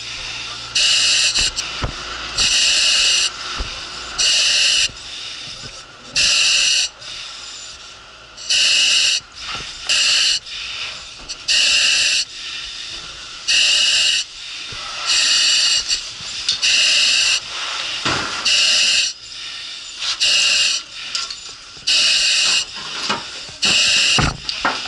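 Firefighter's self-contained breathing apparatus hissing at the mask with each breath: a quick, regular run of loud hisses about every second and a half, with rustling of gear between them.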